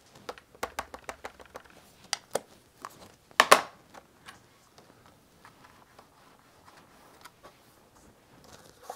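Versamark ink pad tapped repeatedly onto a clear sentiment stamp, a string of light clicking taps with one louder click about three and a half seconds in. After about four seconds only faint, scattered ticks remain.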